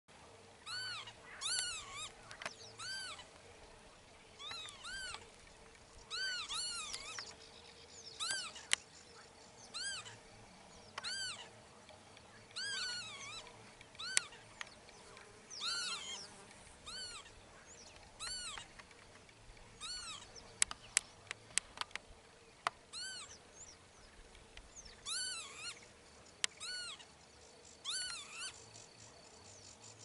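Northern lapwings flying overhead and calling again and again: short wheezy "pee-wit" calls that rise and then fall in pitch, a second or two apart, sometimes overlapping. A few sharp clicks come in around the middle.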